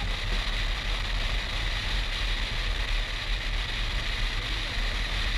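Steady wind rush and road noise of a motorcycle cruising at motorway speed, with the low drone of its BMW R1200 GS boxer-twin engine underneath, picked up by a GoPro on the bike.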